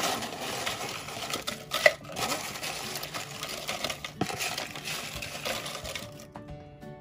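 Dry corn tortilla chips poured from a bowl into a plastic food processor bowl: a crackling, clattering rattle of chips tumbling against the plastic, with one louder clack about two seconds in. It dies away about six seconds in.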